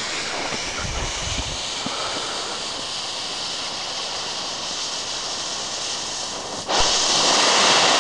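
Fuse hissing as it burns down, then about two-thirds of the way in a homemade black-powder PVC rocket motor ignites with a sudden, loud, steady rushing hiss of thrust from its end-burning charge.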